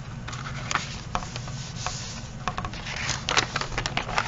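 Paper rustling and scraping as a notebook journal's pages are handled, with scattered small ticks and a page being turned near the end. A low steady hum lies underneath.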